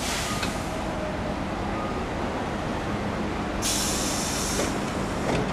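Compressed air hissing from a standing Iyotetsu Type 50 tram: a short hiss at the start, then a louder hiss lasting about a second and a half near the end, over a steady low background rumble.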